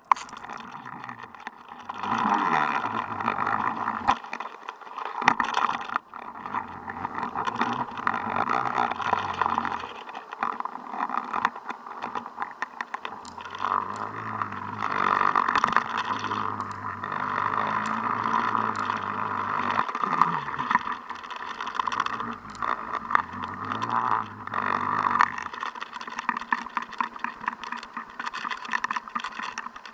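Muffled underwater noise picked up by an action camera in its waterproof housing hanging on a jigging line: a steady rush with many small knocks and clicks against the housing. A low droning hum comes and goes beneath it, sliding in pitch a couple of times.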